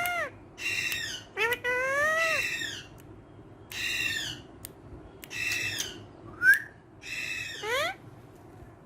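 A pet green parrot squawking and calling: a run of about six harsh calls, several with a rising-then-falling pitch, the sharpest and loudest a short call near the end.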